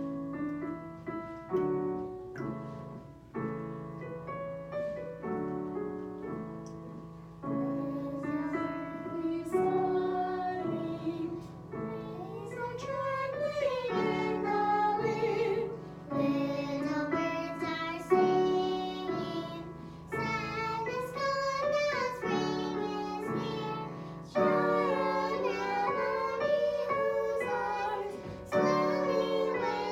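A group of children singing a song together with piano accompaniment. The piano plays alone for the first several seconds before the voices come in.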